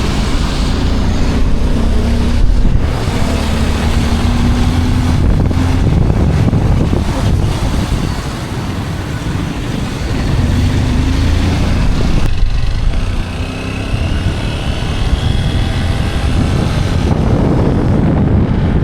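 Motorcycle on the move: its engine note rises and falls under heavy wind buffeting on the microphone.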